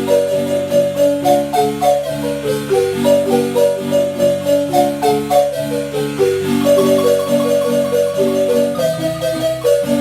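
Marimba playing a lively melody in rolled, tremolo notes over a bass line, with a steady pulse of about three beats a second.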